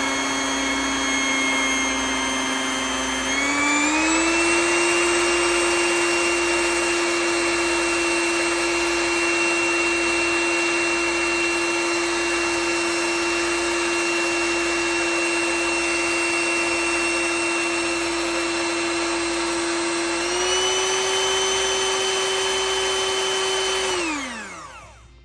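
Electric hand mixer beating cream cheese, a steady motor whine that steps up in pitch about three seconds in and again near the end, then winds down as it is switched off.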